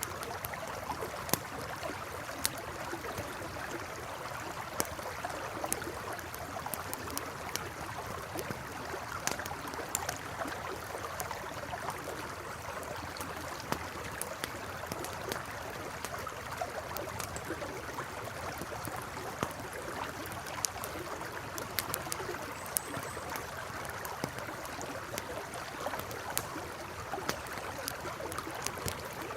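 A river flowing steadily, with a campfire crackling over it in irregular sharp pops and snaps.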